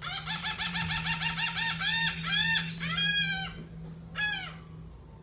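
Gull calling: a fast run of harsh, repeated notes, about eight a second, then slowing into four longer drawn-out cries. A steady low hum runs underneath most of it.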